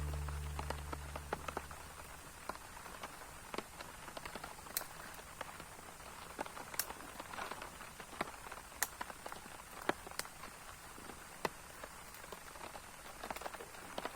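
Rain in the forest: a faint hiss with scattered, irregular ticks of drops falling on leaves.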